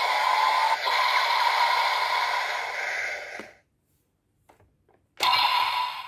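Electronic sound effects from a Bandai DX Zero-Two Driver toy belt's small speaker. They cut off about three and a half seconds in, followed by a second or so of silence with a couple of faint plastic clicks as the belt is worked. A loud new burst of the belt's sound starts suddenly near the end, as the driver is opened.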